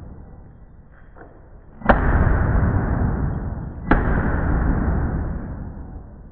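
AK-47 rifle firing two single shots about two seconds apart. Each is a sharp crack followed by a long echoing decay off the walls of an indoor range.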